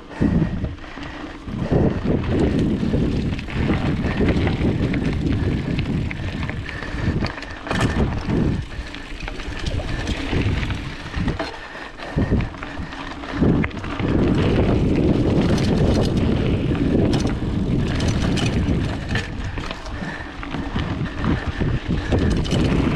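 Wind rumbling and buffeting on a GoPro's microphone while a Specialized Rockhopper 29er mountain bike rides fast over a dirt trail, with scattered clicks and knocks from the bike rattling over rough ground.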